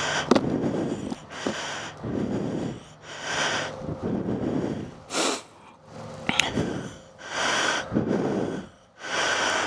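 A person breathing heavily, each breath in or out a loud rush of air about every second or so. A sharp click comes just after the start.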